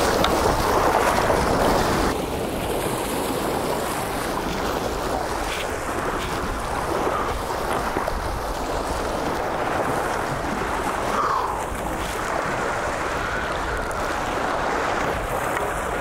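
Surf washing against jetty rocks, with wind buffeting the microphone; the wind and wash are louder for the first two seconds, then settle into a steady rush.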